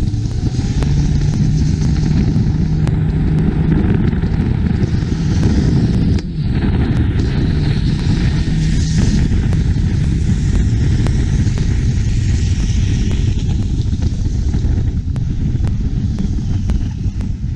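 Long-tail boat engines running hard at speed on the water, a loud, steady mechanical drone with wind and spray noise over it, briefly dipping about six seconds in.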